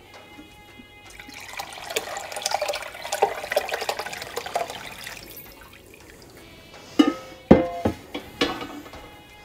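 Curds and whey pouring from an enamelled pot into a cheesecloth-lined cheese box, splashing for a few seconds; three sharp knocks near the end.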